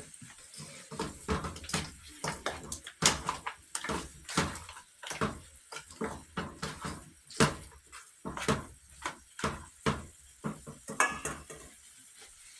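Metal spoon clinking and scraping against a cooking pot again and again, several sharp knocks a second, as a pot of curry goat is stirred.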